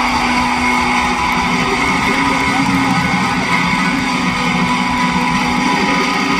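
Live pop-rock band playing, with guitar prominent, heard as loud, steady concert sound.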